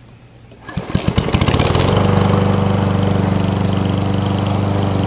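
A walk-behind lawn mower's small gasoline engine starting about a second in. It fires unevenly at first, then catches and settles into a steady run.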